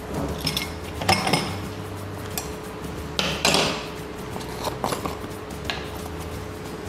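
Kitchen handling sounds on a tabletop: about half a dozen short clinks and knocks of dishes and utensils around a stainless steel mixing bowl, mixed with the rustle of a plastic bag of flour being picked up.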